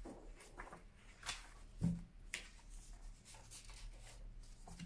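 Tarot cards being handled and shuffled by hand: a few scattered soft taps and slaps of card stock, the loudest about two seconds in.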